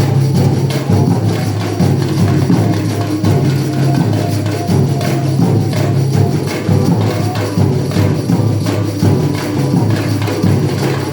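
Band rehearsal music: a steady beat of percussion over a bass line that moves between notes, with no singing.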